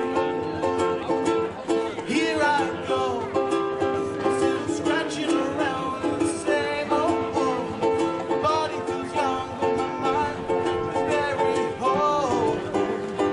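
Live acoustic band music: strummed string accompaniment with a melody line that slides up and down over it.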